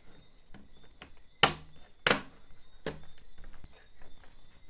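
Lenovo IdeaPad 3 laptop's bottom cover being pressed back on, its clips snapping into place with three sharp clicks, the first the loudest, and faint ticks between.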